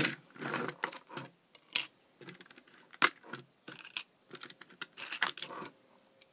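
Hard plastic clicks, taps and rattles of a Lego brick frame being handled and turned over, coming irregularly and dying away near the end.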